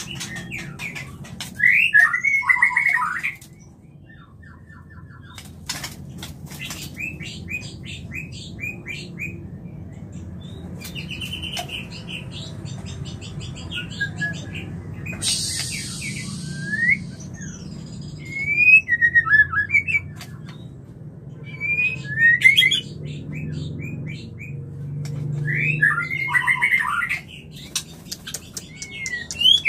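White-rumped shama singing in the call of a bird in breeding condition: loud, fast, fluty whistled phrases with sweeping notes, given in several separate bursts with pauses between, over a steady low hum.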